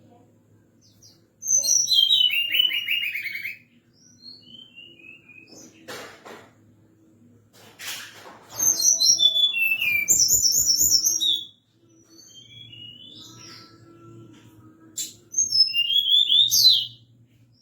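Tledekan gunung songbird singing: three loud bursts of high, quickly descending trilled phrases, with softer single chirps in between.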